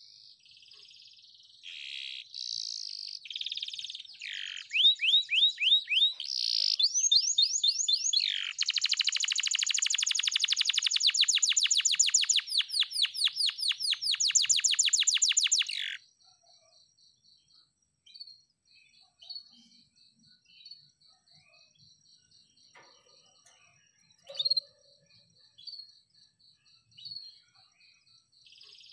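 Canary singing: a run of rapid trills and rolls, with one long, very fast trill in the middle, stopping abruptly about sixteen seconds in. After that only scattered short chirps remain over a faint, fast, high pulsing in the background.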